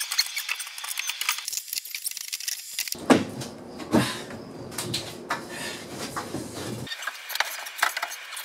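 Fast-forwarded sounds of timber framing work: a dense run of quick knocks and clatter from wooden framing boards being handled and set in place. A fuller, heavier stretch of knocking starts about three seconds in and stops abruptly near seven seconds.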